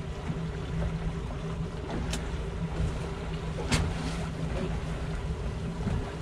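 Outboard motors running steadily at trolling speed, with wind and water noise. Two sharp clicks, about two seconds in and again near four seconds.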